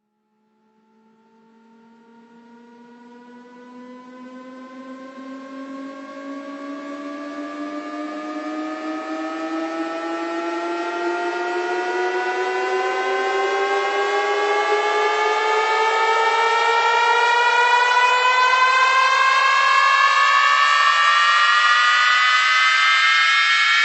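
Synthesized riser: several layered tones fade in from silence and glide slowly upward in pitch together, swelling steadily louder. This is the build-up at the start of a DJ sound-check track.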